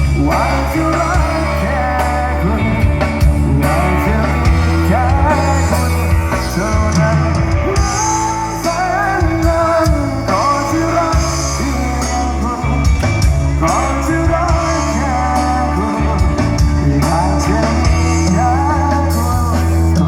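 A live band playing a rock-style song, with a singer's voice over guitar, bass and drums.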